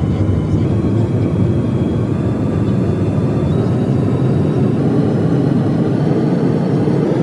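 Steady cabin noise of a regional jet on approach to land with flaps extended: the rush of air and the jet engines, with a faint steady high whine over it.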